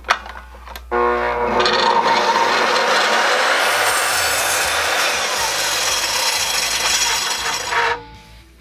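Compound miter saw starting up with a rising motor whine about a second in, then running as its spinning blade is brought down and cuts through a wooden board. The sound cuts off suddenly near the end.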